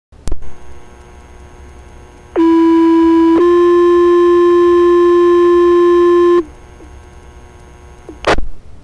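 Fire department two-tone sequential paging alert heard over a scanner radio: a steady tone lasting about a second steps straight up to a slightly higher tone held about three seconds, then cuts off. Before it the channel opens with a click and hiss, and a short squelch crackle comes near the end.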